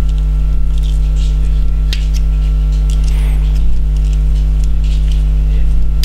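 Loud steady electrical mains hum, with a few faint clicks and scrapes from a screw-on F connector being twisted by hand onto RG6 coaxial cable.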